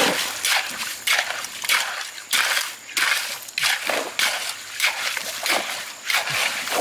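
A hoe and hands digging and scraping wet river gravel in repeated strokes, about two a second, stones grating and rattling, with water splashing.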